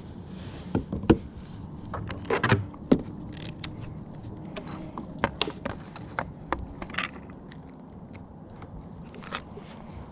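Irregular knocks, taps and scrapes as gear is handled in a plastic fishing kayak: a phone and a plastic fish-measuring board being picked up, set down and moved. The sharpest knock comes about a second in, with a quick cluster just after two seconds.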